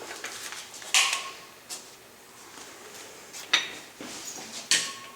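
Hard objects, most likely metal tools or parts, knocking and clinking three times, the first and last with a short metallic ring.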